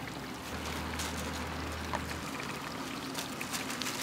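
Hot oil bubbling and sizzling in a large wok as battered slices deep-fry, with a few light clicks. A low hum underneath stops about two seconds in.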